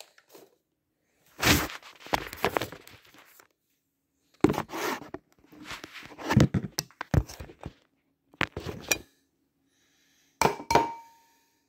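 Knocks and clinks of eggs and a bowl being handled while eggs are cracked into the bowl, in several separate bursts. Near the end, a sharp clink leaves the bowl ringing briefly.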